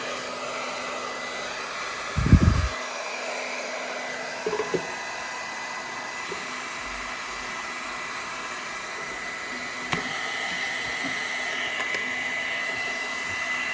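Cordless hair dryer running steadily with its concentrator nozzle fitted: an even rush of air with a thin high motor whine. A loud low thump about two seconds in, and a click near ten seconds in, after which it runs a little louder.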